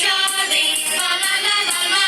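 Music with a sung melody over a steady percussion beat.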